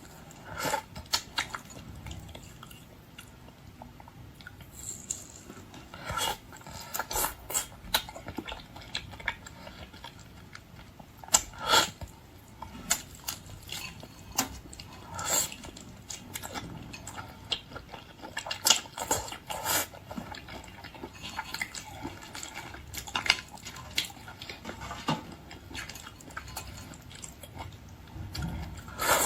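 Close-up eating sounds of a person biting, chewing and pulling apart red devil shrimp, with irregular sharp crackles and clicks from the shells and flesh.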